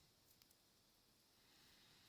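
Near silence: faint room tone with a couple of small clicks about a third of a second in, from plastic Lego minifigure parts being handled.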